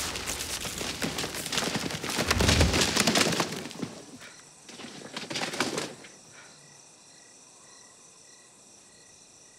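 Bundles of banknotes spilling out of a bag and tumbling onto a tent floor: a rustling, clattering cascade with a dull thump about two and a half seconds in, then a shorter second rustle. From about six seconds on only crickets chirping faintly.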